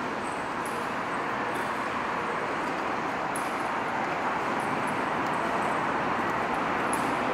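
Steady urban background noise, an even hiss, with faint ticks of footsteps on a hard surface every second or two.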